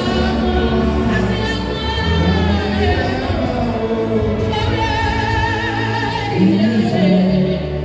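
Music: voices singing long held notes with vibrato over a steady low accompaniment.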